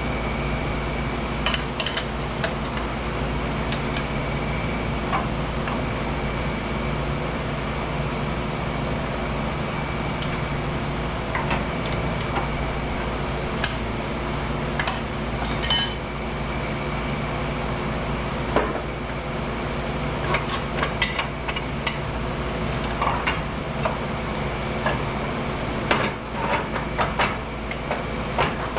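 Steady machine hum under scattered metallic clinks and taps of hand tools on steel, the tapping busier near the end.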